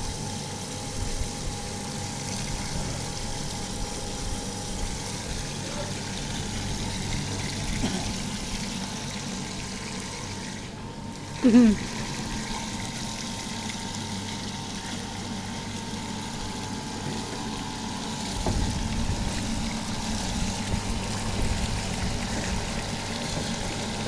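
Stainless steel rice washing machine running: a steady pump hum under the rush of water and rice pouring from its outlet spout into a hopper. A brief loud sound with a bending pitch cuts in about halfway through.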